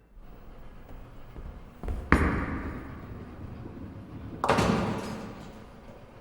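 Bowling sounds with added reverb: a low rumble, then two loud crashes, one about two seconds in and one about four and a half seconds in. Each crash fades slowly in a long reverberant tail.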